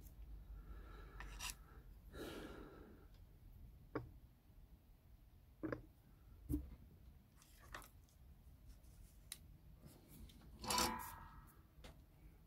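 Faint handling noises of hands working thin wire and small electronic parts: scattered light clicks and taps, with a few brief rubs. The loudest is a short scraping rustle near the end.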